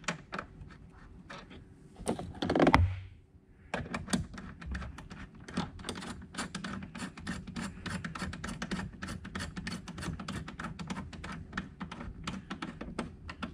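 Hand ratchet with a 10 mm socket clicking in rapid, uneven runs as it turns a mounting bolt back in. A louder knock and rustle comes about two and a half seconds in, before the clicking starts.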